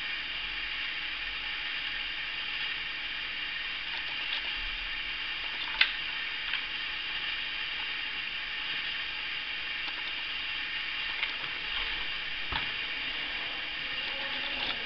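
Steady hiss, with a few light clicks and taps from a small plastic car-shaped speaker being handled. The sharpest click comes about six seconds in.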